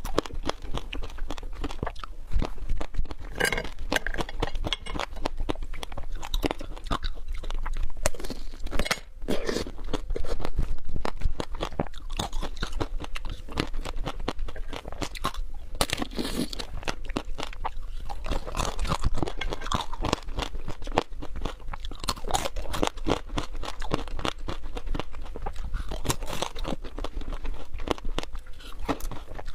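Close-miked eating of tanghulu, fruit coated in hard sugar candy: the glassy candy shells crack and crunch in quick, dense crackles as they are bitten and chewed, mixed with wet chewing of the fruit inside.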